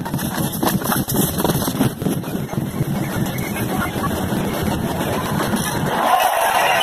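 Crowd noise of a large marching street demonstration, sped up in time-lapse into a dense, fast-flickering blur. Near the end the low part fades and a brighter, voice-like chatter comes forward.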